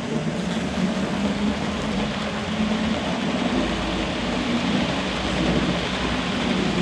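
HO-scale model train running past close by: a steady rumble of small metal wheels on the rails with a low, wavering hum from the drive. It grows louder as the train comes near.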